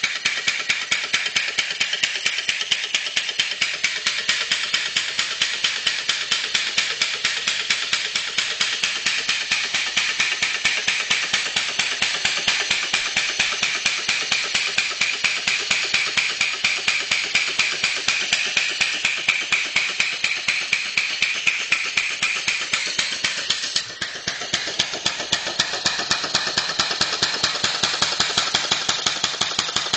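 Two-cylinder Sears air compressor converted into a reciprocating steam engine with a homemade valved cylinder head, running on compressed air: a rapid, even beat of exhaust puffs and valve clatter. It briefly falters about four-fifths of the way through, then picks up again.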